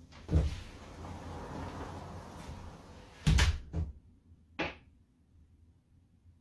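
A front door being opened, then pulled shut with a loud thud and a second knock as it latches, followed about a second later by a sharper click.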